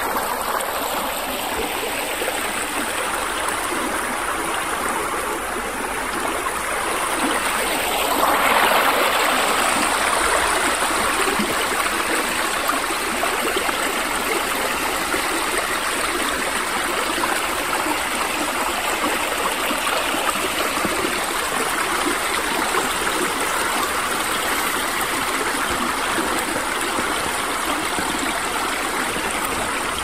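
A river or stream running, a steady rush of water with a lot of splashing hiss. It swells louder about eight seconds in, then settles back to an even level.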